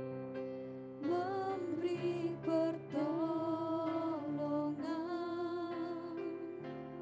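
Two female voices singing a slow worship song into microphones over held instrumental chords; the sung melody comes in about a second in, with a wavering vibrato on the long notes.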